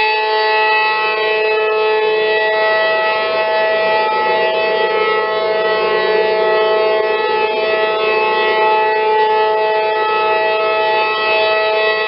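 Outdoor tornado warning siren sounding a loud, steady tone at constant pitch. Its rotating horn makes the sound swell and fade slightly.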